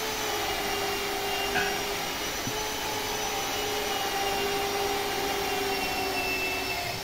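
A motor running steadily in a workshop: an even whine over a rushing, fan-like noise, with a faint click about two and a half seconds in.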